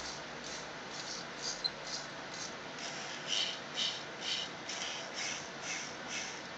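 Small geared motors of a Commodore 64-controlled robotic arm, buzzing in short rasping pulses about two a second as the demo program steps through one motor command after another.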